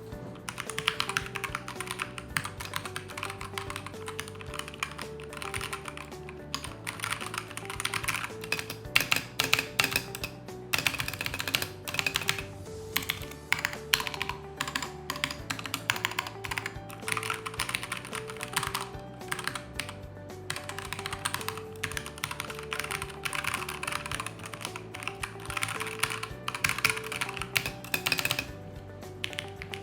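Fast typing on a mechanical keyboard: a quick, continuous stream of keystroke clicks that starts about half a second in and stops near the end, over background music.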